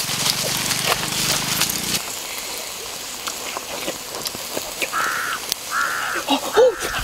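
Three short cawing bird calls, each about half a second, come about a second apart in the second half. Under them is faint crackling from a wood fire under a cooking stone.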